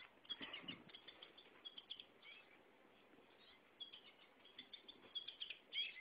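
A small yellow toy bird, held in a dog's mouth, giving runs of short, high chirps as the dog bites on it, in two spells with a pause in the middle.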